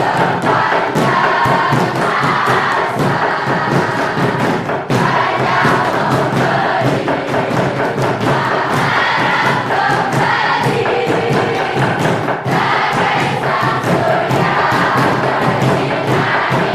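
A group of voices singing together over music, with many thumps and knocks throughout.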